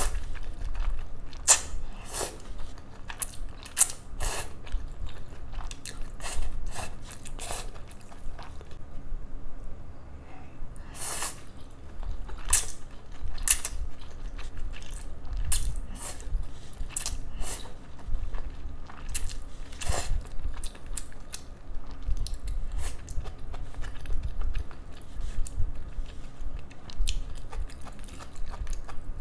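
Flat noodles in sauce slurped and chewed close to the microphone, in short irregular bursts.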